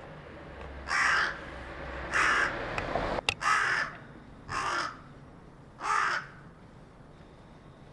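Carrion crow cawing five times, about a second apart, the fourth call a little fainter. A sharp click sounds just before the third caw.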